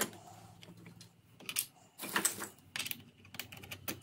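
Hard plastic router-table fence parts clicking and knocking as they are handled and fitted together. There are a few separate sharp clicks near the middle and a quick run of taps near the end.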